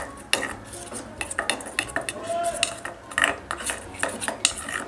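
Steel spoon stirring and scraping a thick flour-and-water paste in a stainless steel bowl, with irregular clinks of the spoon against the bowl's sides.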